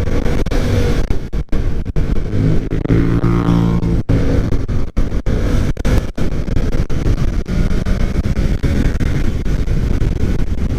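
Yamaha FZ-07's parallel-twin engine running at freeway speed under heavy wind rush, with traffic close alongside; the sound cuts out briefly a few times.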